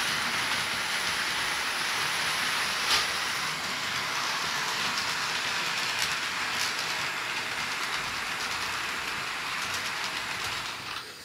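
HO-scale model trains running on Bachmann E-Z Track: a steady whir of the motors and wheels rolling on the rails, with a few light clicks.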